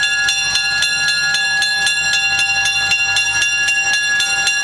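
A railroad bell ringing rapidly and evenly, about four strikes a second, each strike ringing on into the next, over a low steady rumble from the train.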